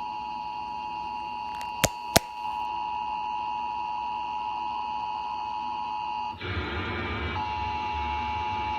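Emergency Alert System attention signal: two close steady tones sounding together as one unbroken, harsh tone. Two sharp clicks come about two seconds in, and from about six seconds in a low hum and hiss runs under the tone.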